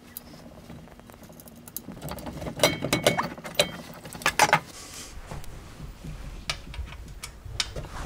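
Metal clicks, clinks and knocks of a hex key and mount parts being handled as the motor is unbolted and lifted off a small milling machine, with a cluster of louder knocks about three seconds in and another about four and a half seconds in.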